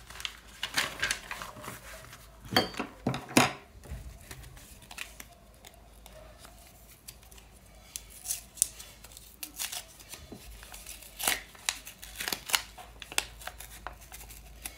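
Paper handling: a copybook's cover and pages turned, then a small handmade paper packet torn open and unfolded, in short sharp crinkles and tears. The loudest rustles come about three seconds in, with more bursts in the second half.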